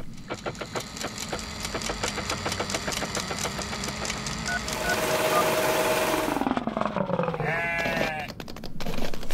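Cartoon sound effects of a cranked word machine: a rapid, even ticking clatter for about four seconds, then a hissing whir over a steady hum, a falling whistle, and a short wavering call near the end.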